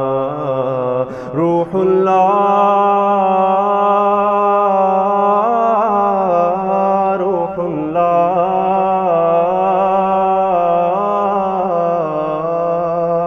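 A man singing the closing lines of an Urdu manqabat (devotional poem) in long, drawn-out, wavering notes. There are two brief breaks in the voice about a second in.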